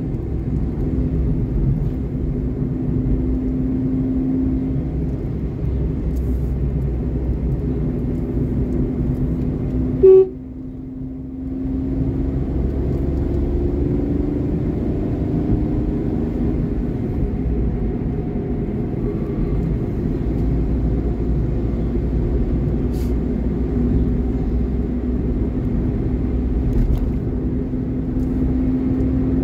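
Steady low rumble of a vehicle driving along a highway, with a faint wavering hum over it. About ten seconds in there is a brief loud spike, then the sound drops away for a second or so before the rumble returns.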